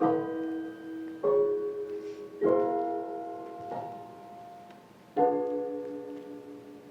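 Contemporary classical music: piano chords struck four times, each left to ring and fade before the next.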